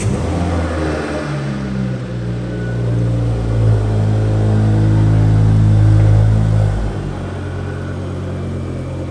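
Mk2 Ford Focus ST225's 2.5-litre turbocharged five-cylinder engine running just after starting, louder for a few seconds in the middle, then dropping back to a steady idle about seven seconds in.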